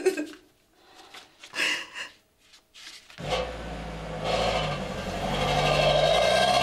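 A Mercedes-Benz ambulance van's engine running as it drives up, starting suddenly about three seconds in and growing louder. Before that come a couple of short, separate sounds.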